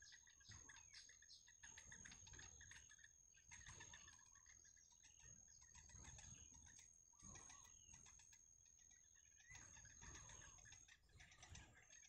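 Faint soft chirps and small rustling clicks at a yellow bittern nest as the adult feeds its chicks, over a steady high-pitched insect whine that breaks off briefly near the end.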